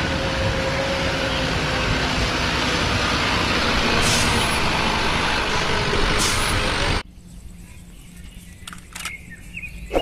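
Loaded sand dump truck running, a heavy engine sound with dense noise over it, and two short high hisses about four and six seconds in. It cuts off abruptly about seven seconds in, leaving a quiet outdoor background with a few light knocks.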